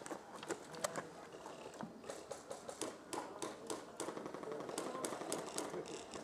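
Airsoft gunfire: a string of sharp, irregular clicks and snaps, some coming in quick runs.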